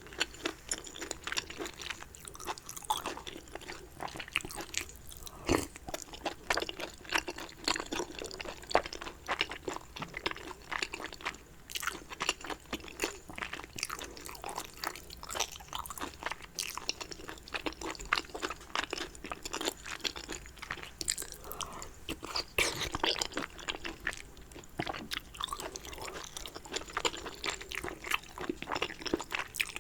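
Close-miked chewing of soft dumplings: a steady run of wet, sticky mouth clicks and smacks with the odd louder bite.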